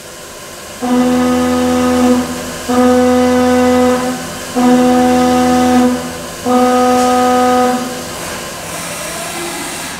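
Haas CNC vertical mill cutting at full feed, its cutter sounding a loud, steady-pitched tone that starts and stops four times, each pass lasting a little over a second, over the steady hiss of flood coolant.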